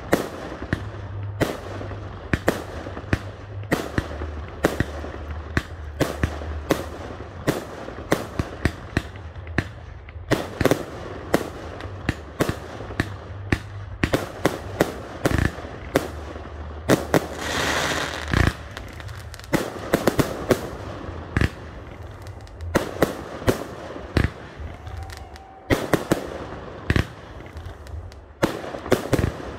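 Fireworks display: a long, irregular run of aerial shells bursting, dozens of sharp bangs, with a hissing rush about halfway through.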